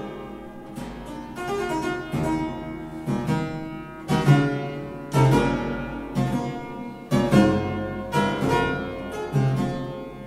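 Gebrüder Krämer clavichord played solo in a classical sonata. Chords are struck about once a second and each dies away before the next.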